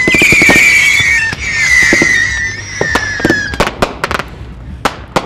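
Fireworks going off: a shrill whistle that holds steady, then sinks slightly and fades about three and a half seconds in, over a string of sharp pops and bangs, with several more bangs near the end.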